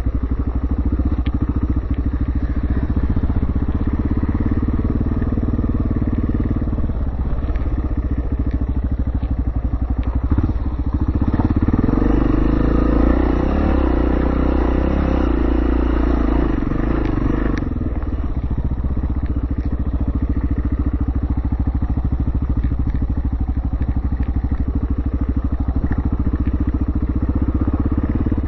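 Yamaha TT600R's single-cylinder four-stroke engine running under way on a dirt bike. It pulls harder and louder for several seconds midway, then settles back to a steadier run.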